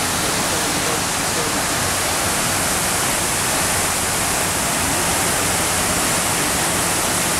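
Man-made curtain waterfall of the World Trade Center Memorial's South Pool: water pouring down the pool's stone walls and splashing into the basin, a steady, even rush.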